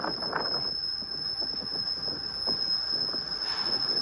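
LEGO model train running along plastic LEGO track, its wheels making irregular clicks and rattles, over a steady high-pitched whine.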